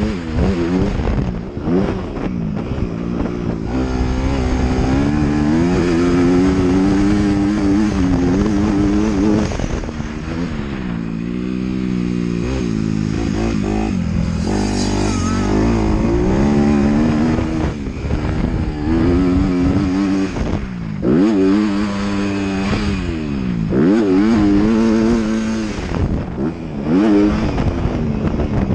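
Motocross bike engine under hard riding, its note repeatedly climbing as the throttle is opened and dropping as it is closed or shifted, over a steady rush of wind and track noise.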